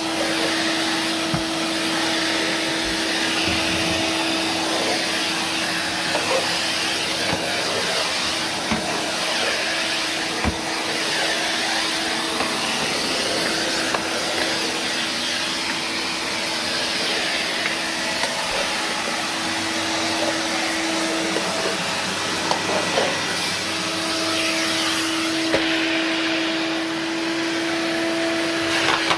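1994 Numatic NVR375 tub vacuum cleaner running while vacuuming: a steady motor hum over rushing air, with occasional brief clicks.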